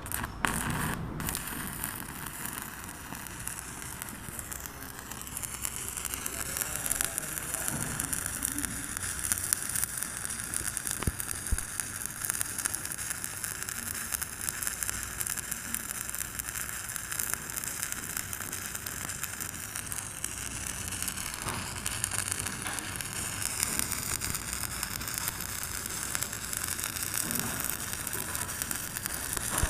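Stick (SMAW) welding arc burning a 7018 low-hydrogen electrode while laying a flat-position (1G) bead: a steady, dense crackle without a break.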